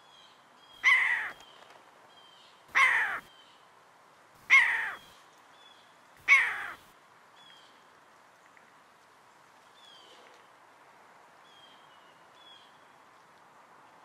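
Bird-call sound effect for a cartoon eagle: four loud, harsh calls, each falling in pitch, about two seconds apart. Faint short high chirps come between and after them.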